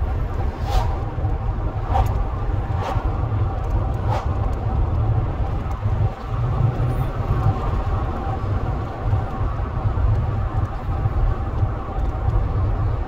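Car driving: a steady low rumble of engine and road noise, with four short clicks about a second apart in the first few seconds.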